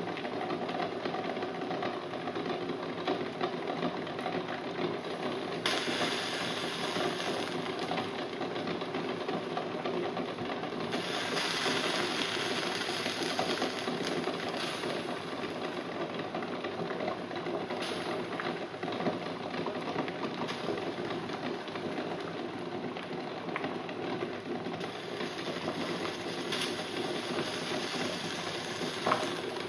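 Eggs boiling hard in a stainless steel saucepan: water bubbling at a rolling boil, with a fast rattle of the eggs knocking against the pan. A few stretches of louder hissing come and go.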